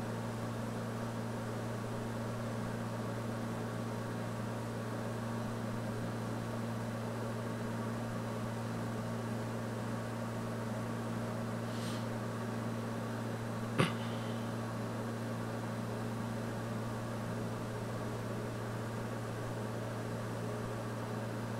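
Steady low background hum with faint hiss, the kind of electrical or equipment hum picked up by a recording microphone. One short sharp click about two-thirds of the way through.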